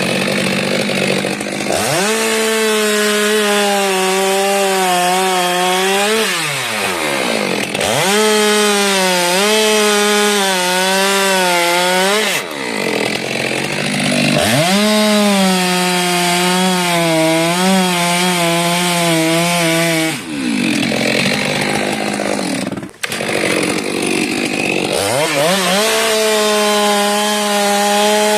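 Stihl chainsaw at high revs cutting through a frangipani trunk. The engine note settles and wavers under load in four long cuts, with short breaks between them where the pitch changes as the bar comes free, and one brief drop in throttle near the end.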